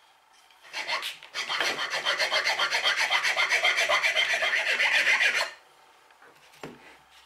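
A metal file scraping across the wooden sole of a coffin smoother in rapid, even strokes, flattening the seat where the plane's steel toe fits. The filing stops abruptly after about four seconds, with a couple of light knocks just before it and one near the end.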